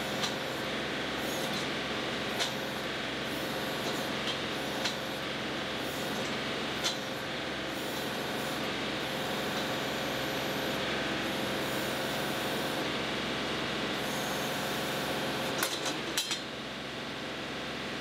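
John Deere 2038R compact tractor's three-cylinder diesel engine running steadily, throttled up above idle. A few light clicks and clanks come through it, with a small cluster near the end.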